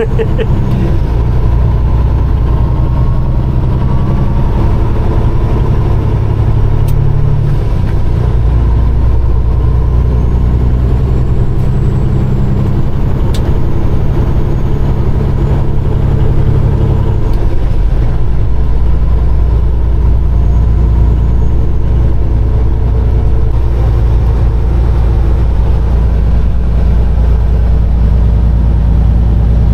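Peterbilt 389 semi truck's diesel engine pulling a loaded trailer of about 76,000 lb, running loud and steady, with the engine note changing twice.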